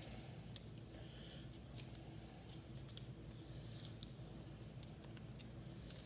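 Faint crinkling of aluminium foil being twisted tightly around a spoon handle, with small soft crackles scattered irregularly throughout, over a low steady room hum.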